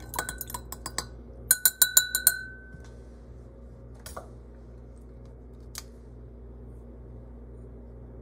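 A stirrer clinking against the side of a glass beaker of solution: a quick run of light taps, then a louder, faster run of clinks that leaves a brief ringing tone, followed by two single taps.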